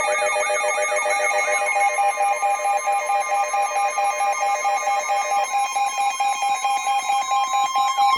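Several Emergency Alert System alert tones playing over one another: steady alarm tones with a warbling sweep repeating about four times a second. Near the end the warble stops and one steady tone carries on alone.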